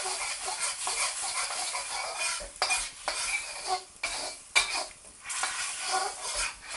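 Deglazing juices of rice wine vinegar, water and soy sauce sizzling in a hot wok while a utensil stirs and scrapes the pan, with several sharp knocks of the utensil against the metal.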